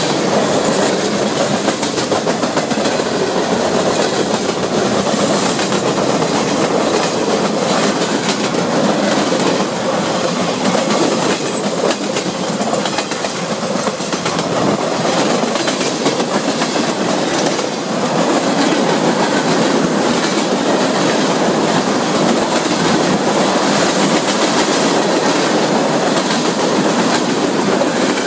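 Freight cars of a passing freight train rolling by at speed. Their steel wheels clatter over the rail joints in a loud, steady rumble with rapid clickety-clack.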